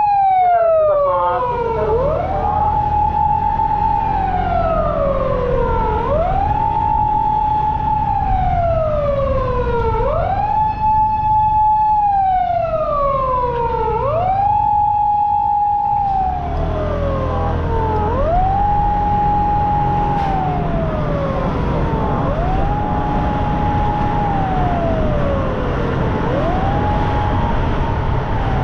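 Japanese police patrol car's siren wailing on an emergency run. Each cycle rises quickly, holds about a second, then falls slowly, repeating roughly every four seconds over vehicle rumble. About halfway through the siren grows fainter while engine and road noise get louder.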